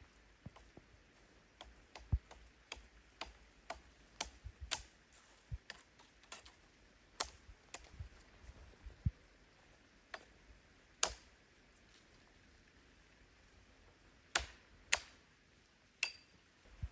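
Sharp clicks and pops at irregular intervals, a couple of the loudest about a second apart near the end.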